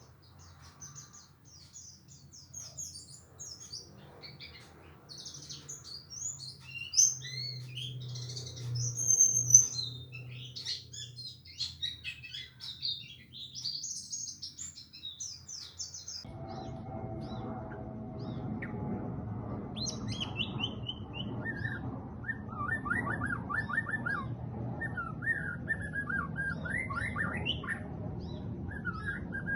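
Caged songbirds chirping and twittering in quick, high-pitched phrases. About halfway in, the sound changes abruptly: a steady background noise comes up, and a bird repeats lower, fast trilled notes over it.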